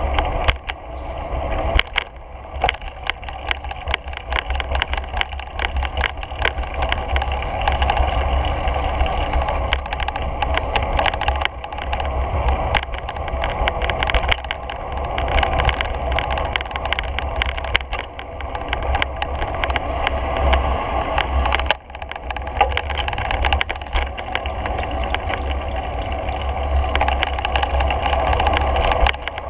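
Wind buffeting the microphone of a moving action camera, a steady low rumble, over a constant rolling and whirring noise from riding along a paved path.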